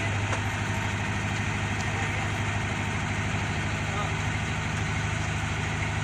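Backhoe loader's diesel engine running at a steady idle, an even low drone.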